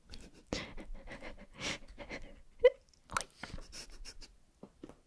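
Soft breaths and mouth sounds close to the microphone, with one short rising squeak about two and a half seconds in.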